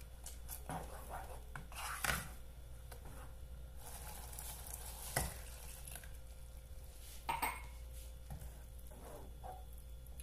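Wooden spoon stirring a thick, creamy sauce in a pot on the hob, with a faint sizzle of the sauce cooking. Three sharp knocks of utensils against the pot stand out, about two, five and seven seconds in.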